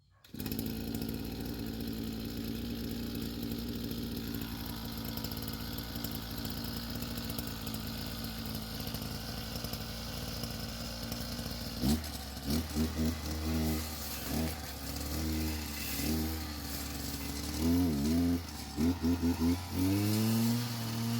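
Small engine-powered tool running steadily, then its pitch rising and falling repeatedly from about halfway through.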